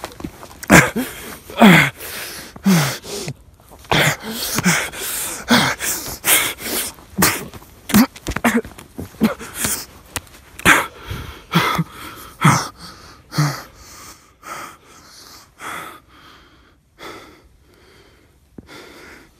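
A man's heavy, ragged breathing with short strained vocal sounds that fall in pitch, about one or two a second, growing fainter and sparser over the last few seconds before stopping.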